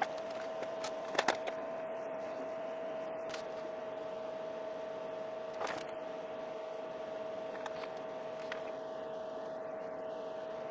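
HP 54845A Infiniium oscilloscope running: steady fan noise with a constant whine. A couple of brief clicks come about a second in and one near the middle, while its hard drive is being rebuilt.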